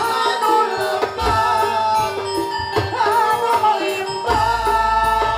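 Live dangdut koplo band music with a woman singing a long, wavering melody over keyboard and percussion; a deep bass comes in about four seconds in.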